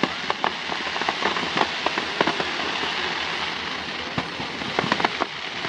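Fireworks crackling and popping: a steady hiss with many small, sharp pops scattered throughout.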